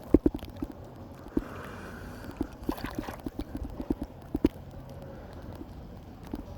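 Water in a swimming pool splashing and dripping in small, irregular knocks over a light steady wash.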